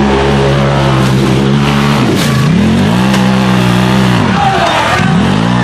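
Off-road side-by-side (UTV) engine running at high revs, its pitch dropping off sharply and climbing back twice: about two seconds in and again near the end.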